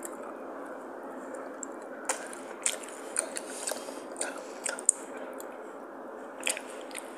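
Someone eating a chocolate truffle: scattered crunchy bites and wet chewing clicks, clustered between about two and five seconds in and again near the end, over a steady background hum.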